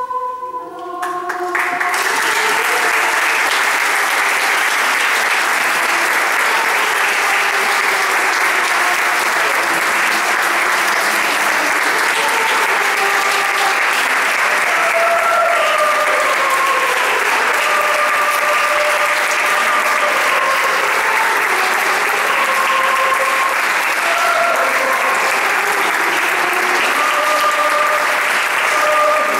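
A children's choir holds its final chord for about a second, then audience applause breaks out and runs on steadily.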